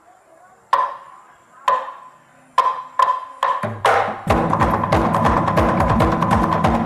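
Percussion music. Three single struck hits, each with a ringing pitched tone, come about a second apart, followed by quicker strikes. About four seconds in, a low held tone enters and a fast, dense percussion rhythm kicks in.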